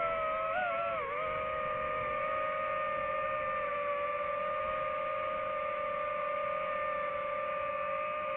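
Multirotor drone's motors and propellers giving a steady high whine as it hovers, the pitch wavering and dipping briefly about a second in as it corrects its position.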